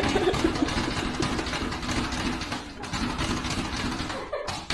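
Plastic cat flap rattling and clattering in rapid succession as a cat pushes and bats at it.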